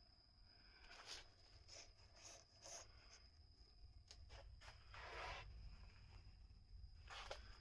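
Near silence with faint, scattered rustling and brushing, a handful of short scrapes and one longer rub about five seconds in, over a faint steady high whine.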